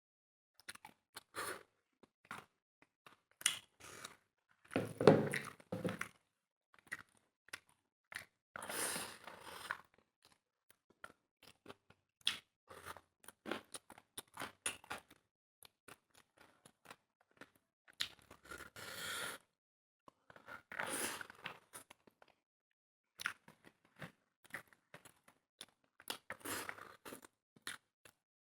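Close-up eating sounds: chewing and crunching with many short smacks and clicks, broken by a few longer noisy spells of about a second each.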